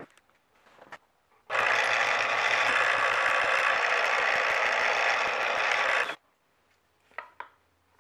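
Milling-machine spindle running a twist drill through a wooden knife-handle scale to bore a pin hole. A steady whirring drone with a low hum starts about a second and a half in and cuts off about six seconds in, followed by a few light handling clicks.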